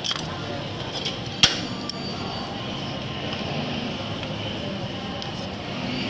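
Metal spatulas clinking and scraping on the frozen steel plate of a rolled-ice-cream machine, with a few sharp clinks in the first second and a half, the loudest about one and a half seconds in, over steady background noise.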